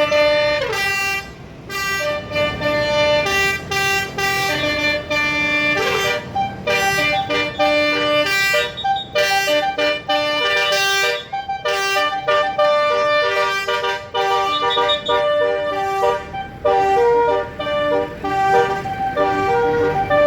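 Basuri telolet horn on a tour bus playing a melody: a run of short held horn notes that step up and down in pitch, with brief breaks between phrases.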